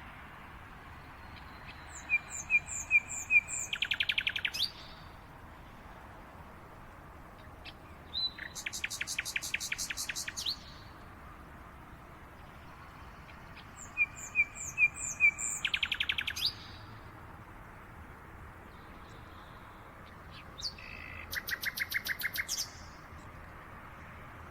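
A songbird singing the same short song four times, about six seconds apart: a few quick repeated high notes, then a fast trill lasting about two seconds, over a steady background hiss.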